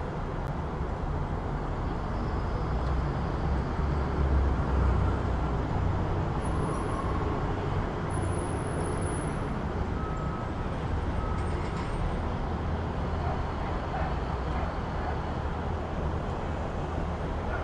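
City street ambience: steady road traffic noise with a continuous low rumble from passing vehicles, swelling about four to five seconds in.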